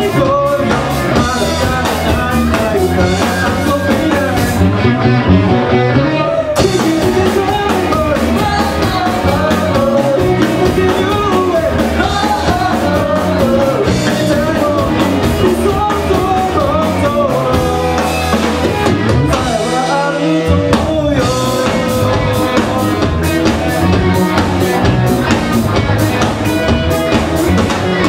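Rock band playing live: electric guitars, bass and drum kit with a male voice singing, heard from the audience in a small club. About five seconds in the cymbals drop out for a moment. Near twenty seconds the bass and drums fall away for about two seconds, then the full band comes back in.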